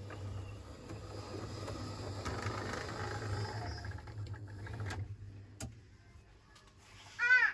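Model railway diesel locomotives running on track: a steady low electric motor hum with wheel noise, dying away about five seconds in, followed by a single click. Just before the end comes a brief loud high-pitched sound that slides downward in pitch.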